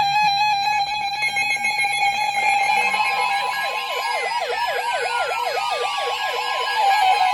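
NOAA weather radio receivers sounding their alarms for an incoming severe thunderstorm warning. A steady, rapidly pulsing alert tone comes first. About three seconds in, a fast, repeating siren-like warble starts over a steady warning alarm tone, with a slower falling sweep under it.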